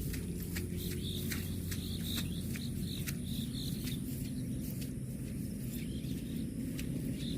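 Rural outdoor ambience: short high chirps repeating, scattered sharp clicks and a steady low hum underneath.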